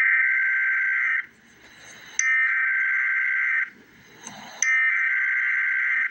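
Emergency Alert System SAME header: three bursts of buzzy digital data tones, each about a second and a half long with about a second between them. This is the coded header that opens an alert, carrying the event type, the affected areas and the time.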